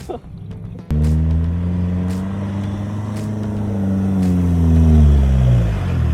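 Four-wheel-drive vehicle's engine working hard under load. It starts abruptly about a second in and holds a steady drone whose pitch rises slightly and then drops near the end.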